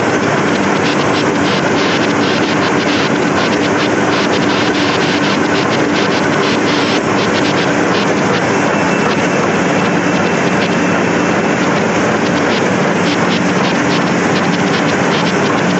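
Heidelberg Speedmaster XL105 six-unit sheetfed offset press running: a loud, steady mechanical din with a fast, fine ticking over it.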